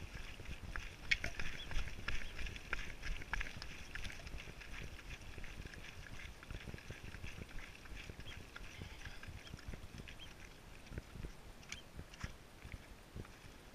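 Footsteps and trekking-pole tips clicking irregularly on a rocky mountain path, over a low rumble of wind and movement on the body-worn camera's microphone. The clicks are thickest in the first few seconds and thin out later.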